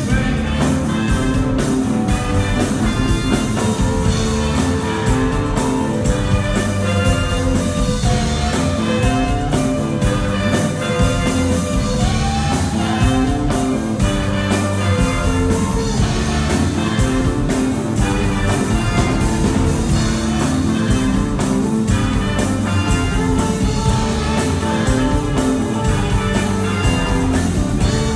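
A live band playing a rhythm-and-blues rock-and-roll number on electric guitars and drums, with a steady driving beat.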